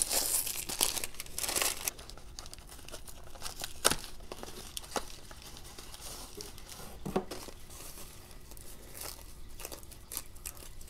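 Gift-wrapping paper being torn and crumpled by hand, loudest in the first two seconds, then quieter crinkling as a small cardboard box is opened and plastic bubble wrap is peeled off, with a few sharp clicks.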